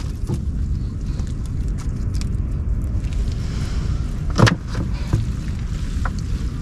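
Steady low wind rumble on the microphone while a gill net is hauled into a wooden boat, with a few light clicks and one sharper knock about four and a half seconds in.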